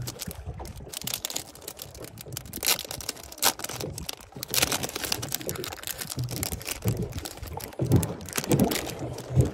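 Irregular light clicks and knocks of fishing gear being handled aboard a small boat, with a few sharper knocks among them.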